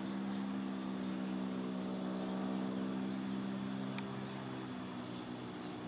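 A distant engine hum, steady in pitch, swelling to its loudest about halfway through and then slowly fading.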